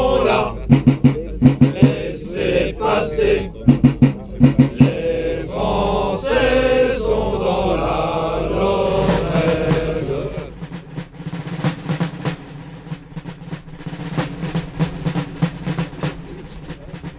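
A group of men singing a chant-like song over groups of regular drum beats, which ends about ten seconds in. Quieter rapid drum taps follow, over a steady low tone.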